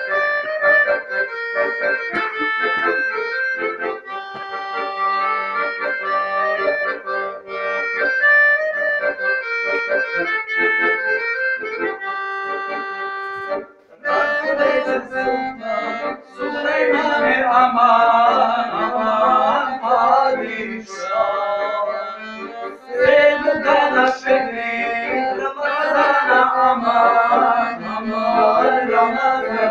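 Piano accordion playing a folk melody. After a brief break about halfway through, a man's voice comes in singing over the accordion.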